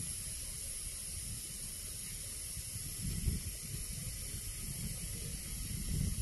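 Open-top freight wagons rolling past at low speed: a steady hiss over a low, uneven rumble, with heavier swells about three seconds in and near the end.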